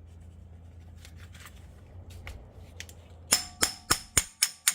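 Hammer blows on a hand impact driver fitted with a T30 Torx bit, working the seized brake-rotor retaining screw loose. The steel-on-steel strikes start about three seconds in, ring sharply, and come at an even pace of about three a second, after a few faint ticks.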